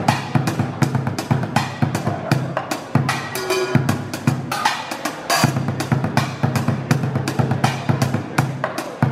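Music with a steady drum-kit beat, kick and snare hits over a bass line.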